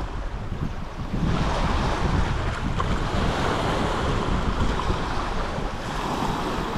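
Wind buffeting the microphone, a steady rushing noise with an unsteady low rumble, over lake water washing against the shore.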